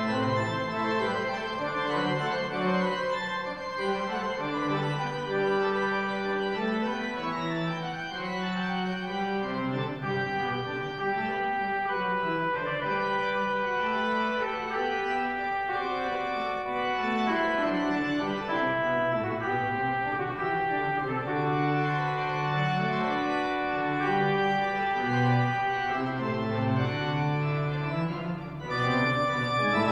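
Cathedral pipe organ playing slow, sustained chords.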